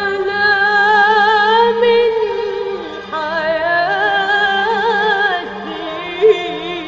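A solo voice sings an Arabic classical qasida in long, ornamented held notes with wide vibrato. The first phrase breaks off about three seconds in and a second begins, and a short loud accent comes about six seconds in.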